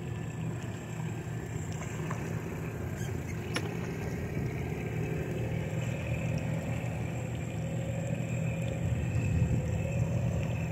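A boat motor running with a steady low drone, growing gradually louder, with a faint whine that rises slowly in pitch.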